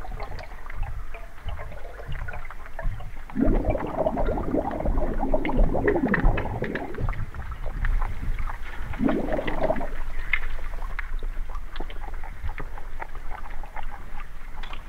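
Water heard through a microphone held underwater: muffled gurgling and sloshing over a low rumble, with many small clicks. Kayak paddle strokes churn the water, in a longer swirl about three and a half seconds in and a shorter one around nine seconds.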